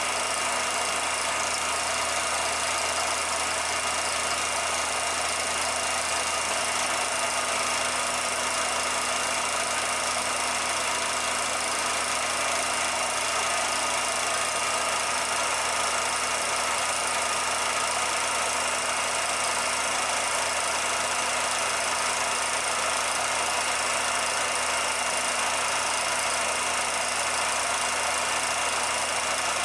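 Steady mechanical running noise of a 16mm film projector, with a constant hiss and a few steady humming tones.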